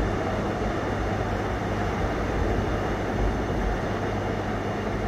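Seoul Subway Line 4 electric train running through a station without stopping: a steady rumble and rolling noise of steel wheels on the rails, with the last car going by near the end.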